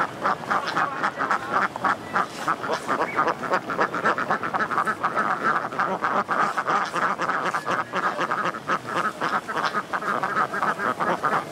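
A large flock of Indian runner ducks quacking continuously, many short calls overlapping in a rapid, unbroken stream.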